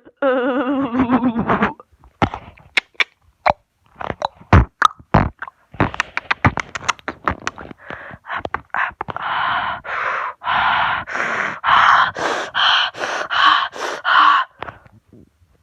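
A person making silly noises with voice and mouth: a wavering bleat-like vocal sound, then a scatter of sharp clicks and pops, then a run of about ten short puffing noises about twice a second.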